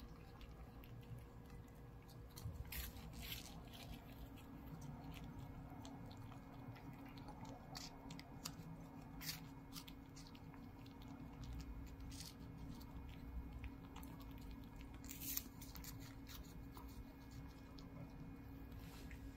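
Turkish Angora cat chewing small chunks of food from a plate: soft, scattered crunches and clicks, a few louder ones, over a faint steady hum.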